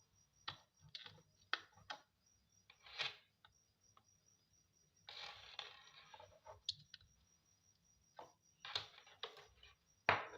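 Scattered light clicks and short scrapes at irregular intervals, with a longer scraping rustle about five seconds in and a sharper click near the end.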